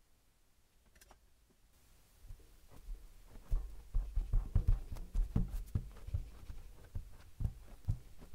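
Kinetic sand crunching under flat palms pressing down on it: a run of soft, quick crackles with dull thumps, starting about two seconds in and loudest in the middle.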